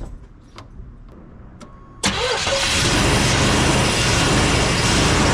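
A few light clicks, then about two seconds in the 1989 GMC Sierra's engine starts abruptly and runs loud and steady.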